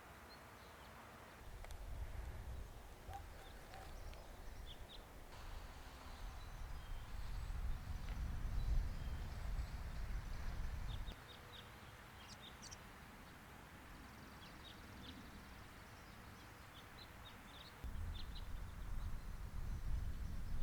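Outdoor ambience with small birds chirping in short, scattered calls. A low rumble comes in and drops out abruptly twice.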